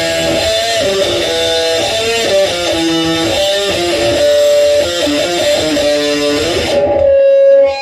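Electric guitar with a distorted crunch tone and reverb playing a fast single-note melodic lead line, ending near the end on one held note that cuts off.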